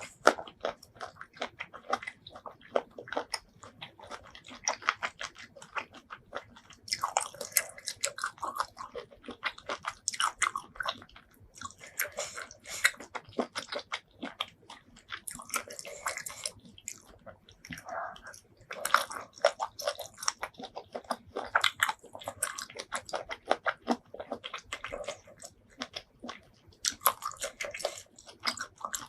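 Close-miked chewing and biting of seafood: dense wet clicks and smacks in bursts of a second or two, with short pauses between mouthfuls.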